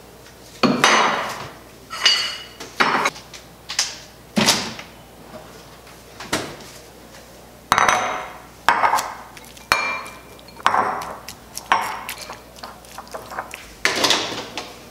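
Kitchen handling noises: a ceramic bowl covered in cling film being taken from the fridge, set down on a granite countertop and picked up again, with about a dozen sharp knocks, clinks and clatters at irregular intervals, some ringing briefly.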